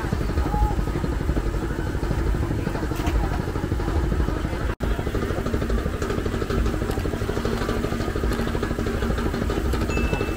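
Steady busy-street ambience: a low, fast-pulsing engine-like rumble with crowd voices mixed in. The sound drops out for an instant a little before halfway.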